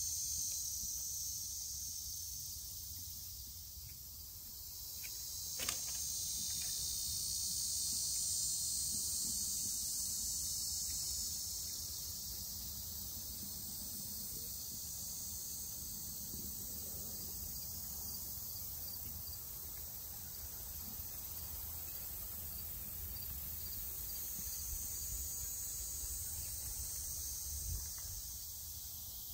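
A summer chorus of insects: a steady, high-pitched buzz that swells louder twice and fades back. There is one sharp click about six seconds in.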